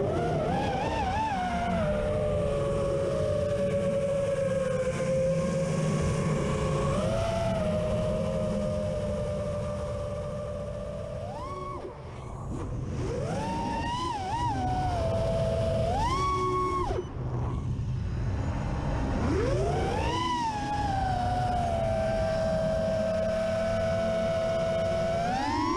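Racing quadcopter's motors and propellers whining, heard from the onboard camera. The pitch follows the throttle: a long steady hum, then several sharp punches up and quick chops down in the second half, with the sound nearly dropping out once or twice. A steady rush of wind over the camera's microphone runs underneath.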